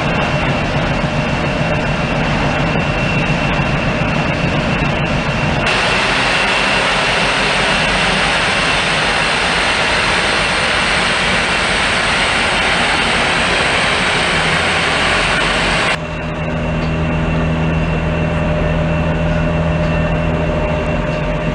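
Ship's engines droning steadily under a loud rushing noise, heard on deck in pack ice. The rushing grows abruptly louder about six seconds in and drops back about sixteen seconds in.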